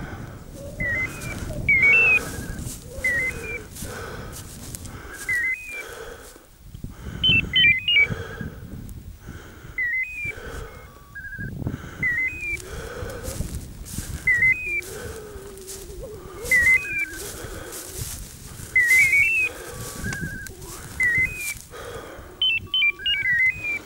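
A small bird singing, repeating a short chirping whistle about once a second, with a quicker run of notes twice. Underneath is a low rustle of wind and steps through dry grass.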